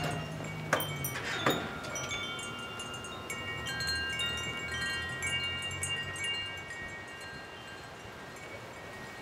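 Metal tube wind chimes ringing: a few sharp strikes in the first second and a half, then several overlapping tones that ring on and slowly fade.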